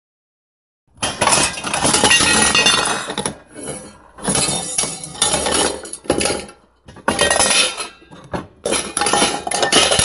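Loud metallic clinking and clattering in several runs of one to two seconds with short breaks, starting about a second in.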